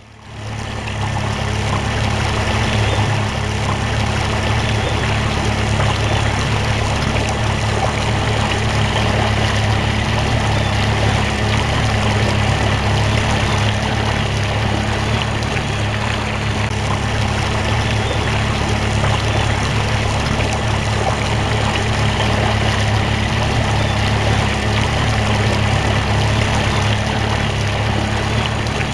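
Outboard motor running steadily at cruising speed, pushing a small fishing boat, with water rushing past the hull. It fades in at the start and then holds steady.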